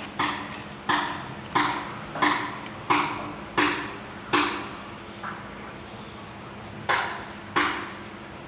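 Sharp metal-on-metal taps, each ringing briefly: seven evenly spaced strikes, a pause of about two seconds, then two more near the end.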